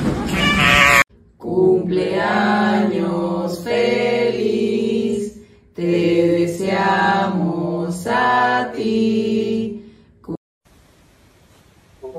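A short scream in the first second, then singing in two long phrases of held, pitched notes, each about four seconds long.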